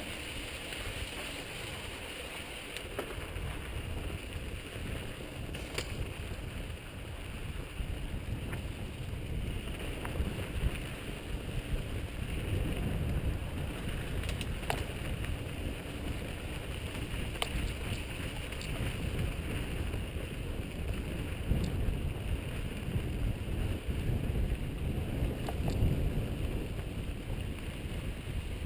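Mountain bike rolling along a dry dirt singletrack, a steady low rumble of tyres and wind buffeting the helmet-mounted camera's microphone, with scattered sharp clicks and rattles from the bike on the rough trail.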